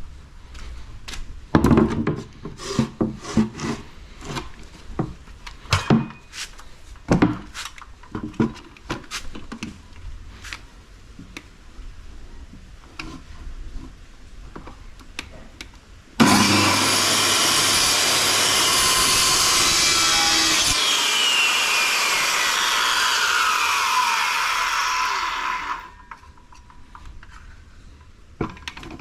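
Scattered knocks, clicks and short scrapes of hand work on wood. About halfway through, a power tool starts, runs steadily for about nine seconds with one tone sinking slowly in pitch, and cuts off suddenly.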